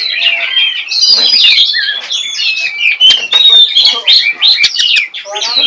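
Oriental magpie-robin (kacer) singing in the rapid 'nembak' style: a loud, continuous stream of varied whistles, rising and falling slurred notes and sharp chips.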